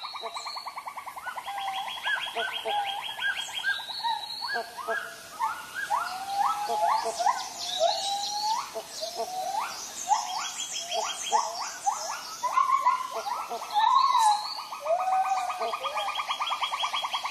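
Tropical forest chorus: many birds calling with short rising and falling whistles and chirps over fast, steady pulsing trills.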